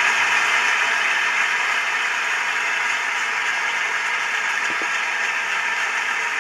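Steady hiss like radio static, even and unbroken, with a faint low knock about three-quarters of the way through.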